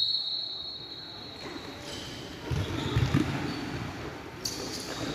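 The end of a referee's whistle blast fades out at the start. Then a futsal ball thuds a few times on the court, with faint voices in the background.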